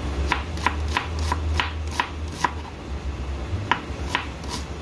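Chef's knife slicing an onion into half-moon slices, each cut ending in a sharp tap of the blade on the cutting board: about seven taps at roughly three a second, a pause of about a second, then four more near the end.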